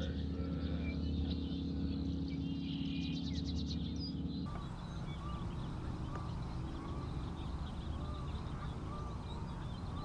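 Birds calling over a steady low hum. In the first half there is a quick trill and a rising whistle; in the second half, short repeated calls come about twice a second.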